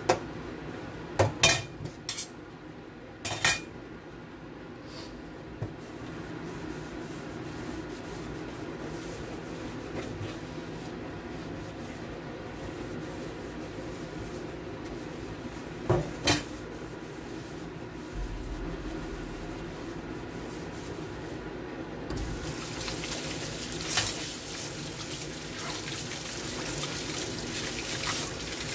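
Stainless steel dishes in a steel sink: a few sharp metal clanks in the first few seconds and another about sixteen seconds in as a colander is scrubbed and handled. The tap then runs from about twenty-two seconds in as the colander and a metal spoon are rinsed.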